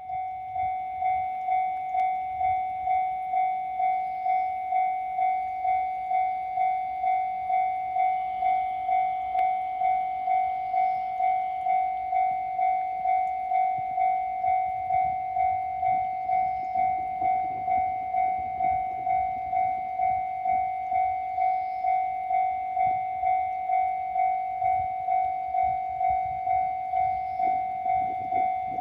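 Japanese railway level-crossing warning bell ringing, a steady electronic ding repeating about twice a second, the signal that a train is approaching. A faint low rumble underneath grows stronger in the second half.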